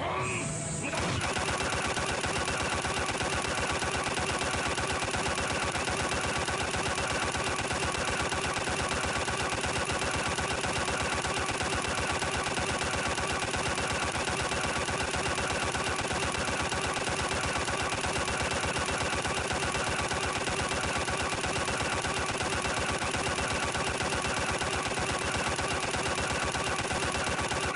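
Punch-impact sound effect repeated as a very fast, unbroken barrage of hits, starting about a second in and going on at an even pace.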